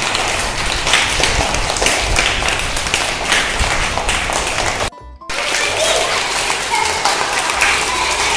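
A classroom of young children and their teacher clapping their hands together, a dense run of many small claps. The clapping breaks off for a moment about five seconds in and then carries on.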